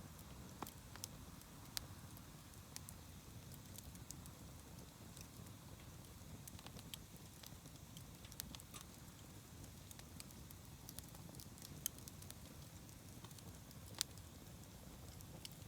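Wood campfire burning quietly, with sparse sharp crackles and pops over a low, faint rumble; the loudest pops come about twelve and fourteen seconds in.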